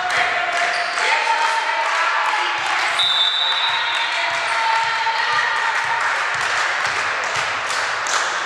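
A volleyball bouncing and thudding on a sports-hall floor, with players' voices calling out and echoing around the gym.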